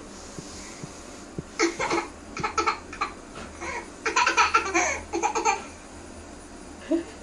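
An 18-month-old girl laughing in short bursts, starting about a second and a half in, in two bouts with the louder second one in the middle, then stopping.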